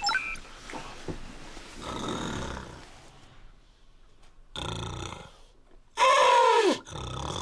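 A man snoring loudly through a gas mask. Two rasping breaths build to a loud snore about six seconds in, whose groaning tone falls steeply in pitch.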